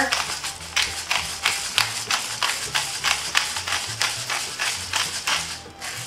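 Hand-twisted pepper grinder cracking peppercorns, a fast run of clicks about three to four a second that stops near the end, over soft background music.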